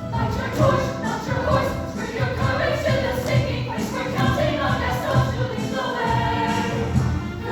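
High school show choir singing a medley in parts, over instrumental accompaniment with a steady low beat.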